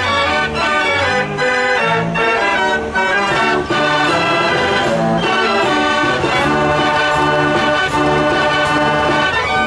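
Gavioli fair organ playing a tune: pipe melody over a regular bass line, with a few sharp drum or cymbal strikes.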